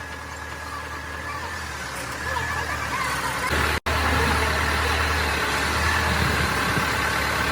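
Heavy engine idling steadily with a wavering high whine over a low hum. The sound cuts out for an instant about four seconds in and comes back a little louder.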